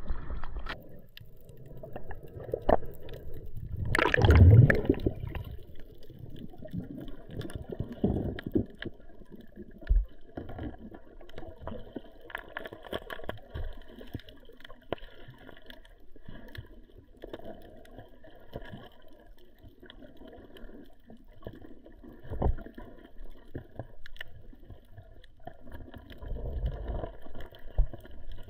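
Muffled water sound picked up by an action camera underwater: a loud rush of water about four seconds in, then low, uneven water movement with scattered faint clicks.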